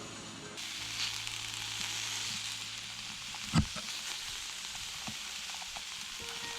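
Meat sizzling as it cooks in a hot pan, the hiss starting about half a second in, with one sharp knock about halfway through.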